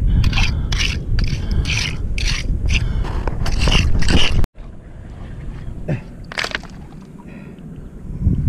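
Hand tool scraping and digging rapidly through gritty sand and shell crust on intertidal rocks while digging out wonderworm bait, about three strokes a second, with wind rumbling on the microphone. About halfway in the sound cuts off abruptly and turns quieter, with only a few scattered scrapes.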